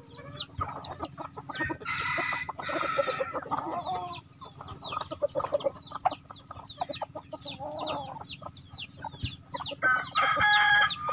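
A free-range flock of chickens clucking, over rapid high-pitched chirping that repeats several times a second. A rooster crows near the end.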